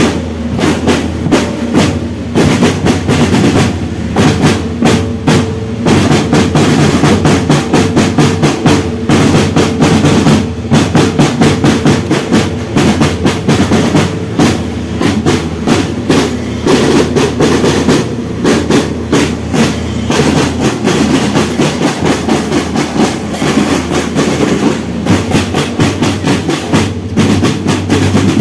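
School marching drum band playing loudly: snare and bass drums beating a fast, dense, unbroken rhythm, with marching glockenspiels struck among them.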